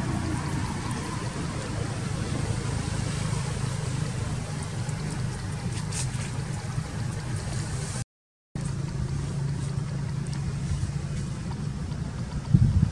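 Steady low engine hum over outdoor background noise. It drops out completely for about half a second past the middle, and a louder rumble comes in near the end.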